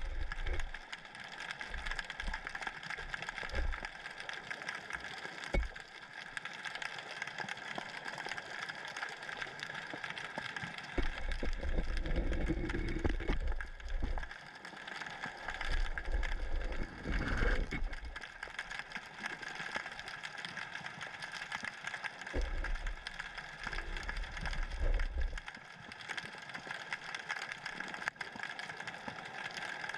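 Underwater sound picked up through a submerged camera: a steady mechanical whine made of several fixed tones, with low rumbling surges several seconds long as the current pushes the camera about.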